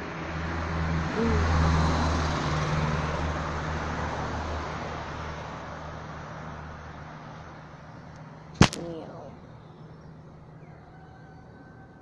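A motor vehicle passing close by: engine and tyre noise swell over the first two seconds and then fade slowly, over a steady low engine hum. A sharp double click comes about two-thirds of the way through.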